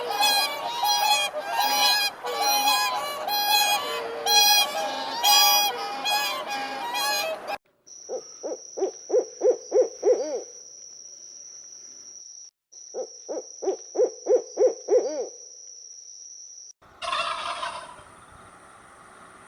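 Birds calling: first a long run of loud, repeated pitched calls, then two series of about eight quick pulsed calls each, about three a second, with a steady high tone behind them.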